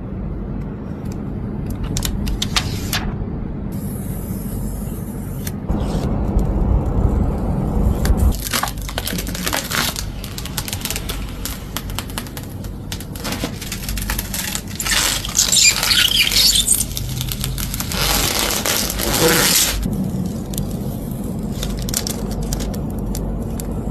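Protective plastic film being peeled and crinkled off new PC hardware: irregular crackling and rustling, with denser stretches of crinkling about fifteen and eighteen seconds in.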